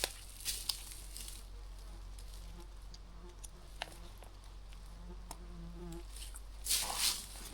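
A fly buzzing in short, broken stretches, a faint low drone that comes and goes through the middle. A few crunching rustles come at the start and again near the end.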